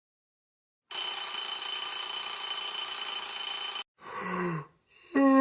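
An electric bell rings steadily for about three seconds, then cuts off sharply. A person gives a short groan, and near the end begins a long sigh that slides down in pitch.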